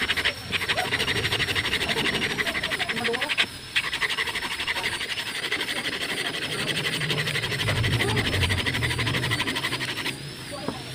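Sandpaper wrapped around a stick being rubbed by hand over a small wooden block in quick back-and-forth strokes, a steady rapid rasping that pauses briefly about a third of the way in and again near the end.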